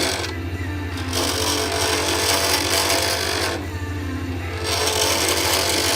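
Lathe motor running with a steady low hum while a turning tool cuts a spinning acrylic pen blank with a harsh scraping hiss, which stops briefly twice.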